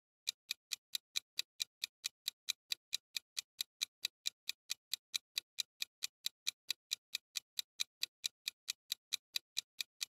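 Ticking-clock countdown sound effect: fast, evenly spaced ticks, about four or five a second.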